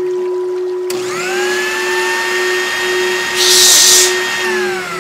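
An electric motor like a power drill spins up about a second in, runs with a steady whine, winds down near the end and starts up again. A loud "shh" hush comes about three and a half seconds in. A low steady tone from the music holds underneath.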